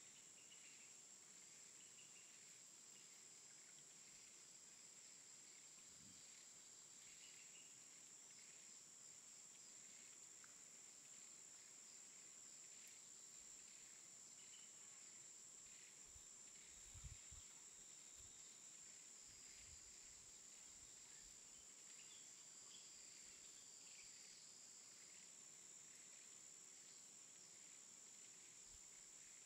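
Faint jungle ambience: a steady high-pitched insect drone with scattered short chirps over it. A few soft low thumps come a little past halfway.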